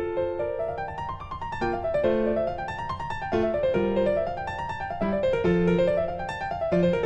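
Background piano music: runs of notes climbing and falling over a low bass line.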